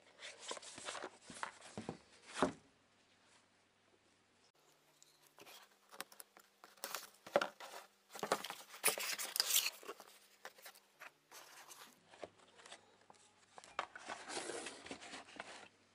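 Cardboard box and paper leaflet being handled and opened: irregular rustling, sliding and scraping of card and paper in bursts, loudest around the middle, with a short lull near the start.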